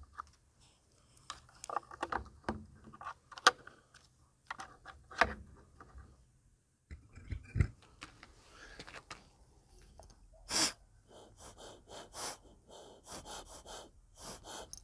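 Clicks and knocks of hands working on a small scooter engine, then a loud puff of breath and a quick run of short breaths through a rubber hose on the engine's intake manifold, taken by mouth.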